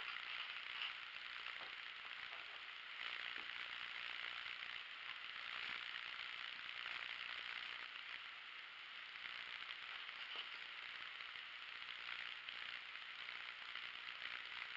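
Faint steady hiss with soft rustling as knit fabric is smoothed, folded and pinned by hand on a floor.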